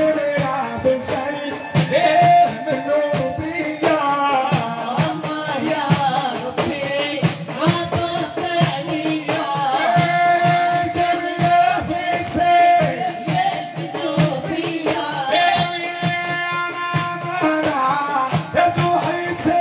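Live music: a man singing into a microphone while beating a large frame drum with his hand, to a steady rhythm of drum strokes under his voice, with long held notes now and then.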